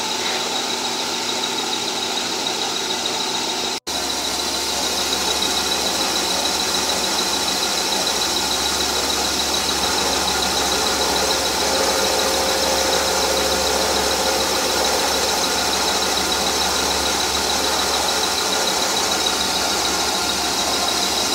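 Metal lathe running steadily while a center drill in a tailstock Jacobs chuck is fed into the end of the spinning workpiece, with a steady high whine over the machine noise. The sound cuts out for an instant about four seconds in.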